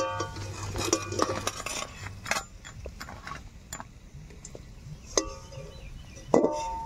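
Metal spatula clinking and scraping against a steel wok and steel plate while fried fritters are lifted out of the oil, with several ringing metallic clinks, the loudest near the end.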